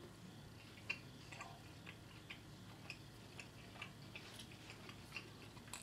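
A person chewing a mouthful of toasted grilled cheese sandwich: quiet, irregular mouth clicks, two or three a second.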